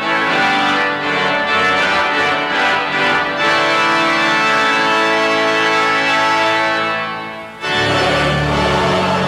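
Organ playing held chords that change every second or so. About three-quarters of the way through it fades briefly, then a new chord with a deep bass comes in.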